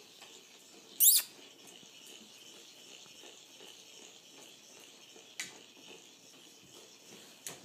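Airedale terrier puppy playing with its toys on a blanket: one short, high, rising squeak about a second in, then faint rustling and a couple of light clicks.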